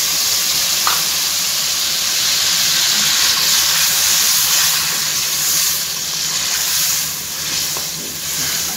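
Yogurt sizzling loudly in hot oil in a steel karahi as it is stirred into fried chicken pieces, a steady hiss that eases off a little near the end.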